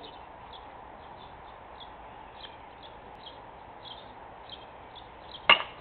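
Small birds chirping outdoors, short high calls repeating every half second or so over a steady low background. Near the end, one sharp loud crack as the pitched baseball arrives at the plate.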